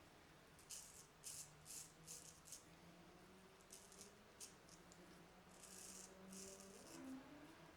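Faint, short scraping strokes of a Filarmonica 4/8 straight razor cutting through lather and near-smooth stubble on the pickup pass, a series of separate light scrapes. A faint steady low hum lies underneath.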